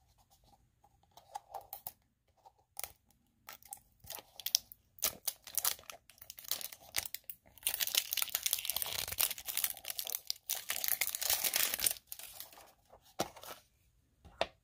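A surprise toy egg's wrapper being torn open and crinkled by hand. Scattered short rustles and clicks for the first half, then a long stretch of dense crinkling, then a few last rustles.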